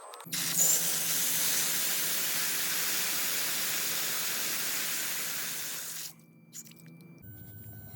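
A loud, steady spraying hiss with a low hum beneath it, starting suddenly and cutting off after about six seconds.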